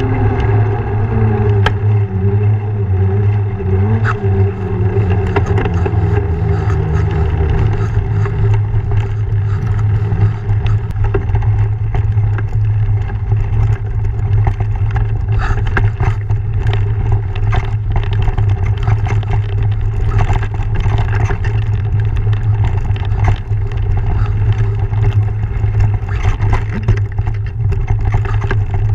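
Mountain bike descending: a steady low rumble with a buzzing tone that falls in pitch over the first several seconds as the bike slows off the road. Then the tyres and frame rattle and clatter over the rocky singletrack, with frequent sharp knocks.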